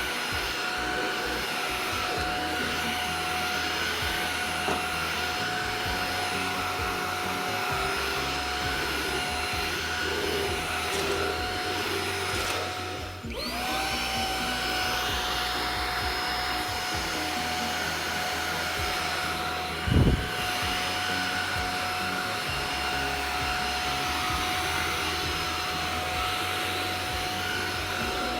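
Xiaomi Mi Handheld 1C cordless stick vacuum running with a steady high whine. About halfway through, the motor briefly winds down and spins back up. A single dull thump comes about two-thirds of the way in.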